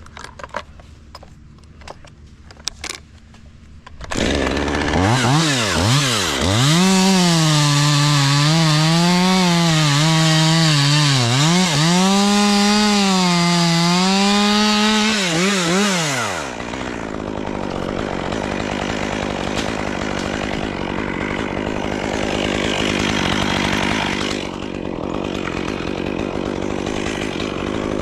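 Chainsaw at full throttle cutting, starting about four seconds in. Its high engine note sags and recovers over and over as the chain bites into the wood. After about sixteen seconds the clear engine note gives way to a steady loud noise with no clear pitch. The opening seconds hold only a few faint clicks.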